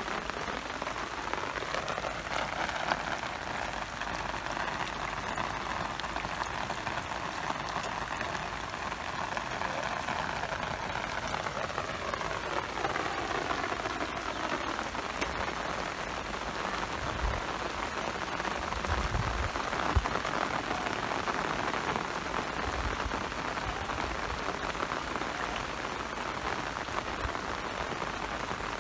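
Steady rain falling on standing water and plants, an even hiss throughout, with a few low thumps about two-thirds of the way through.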